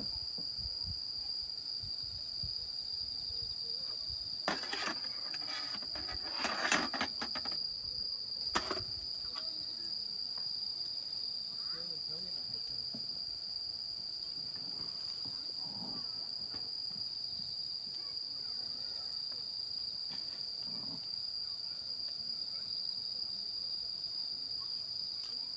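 Steady high-pitched insect chorus, a continuous trill. A few brief clatters of cookware being handled come in between about four and nine seconds in.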